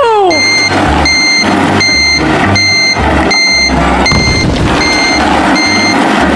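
A truck's reversing alarm beeps steadily, about eight beeps a little under a second apart, stopping just before the end, over a low, pulsing engine rumble. Partway through there is a short clatter of small bricks tipping out.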